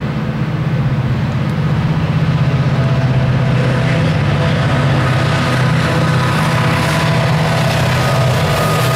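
CSX diesel-electric freight locomotives running under power as they approach and pass, a loud, steady low engine rumble with a fine pulsing beat that grows louder over the first two seconds.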